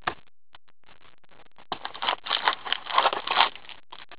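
Cardboard trading-card box and paper checklist being handled: a short rustle at the start, then about two seconds of crackly scraping and rustling as the box is worked open.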